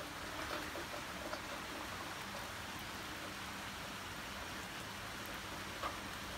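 Steady rain falling, an even hiss of drops on wet paving and leaves.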